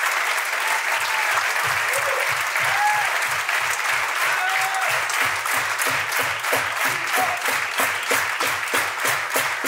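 An audience applauding over music with a steady thumping beat. In the second half the clapping falls into time with the beat.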